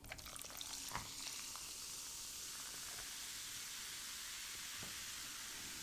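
Freshly poured orange cream Coca-Cola Zero Sugar fizzing steadily in a cup, with a few faint clicks of ice.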